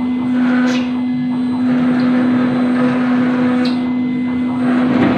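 CNC router spindle running at a steady high speed, a constant motor hum over the grinding noise of the bit cutting granite, with a few brief scratchy hisses.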